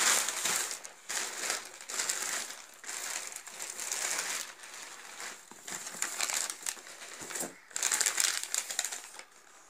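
Plastic courier packaging crinkling and rustling in irregular bursts as it is pulled and peeled off a cardboard box, loudest at the start and again about eight seconds in.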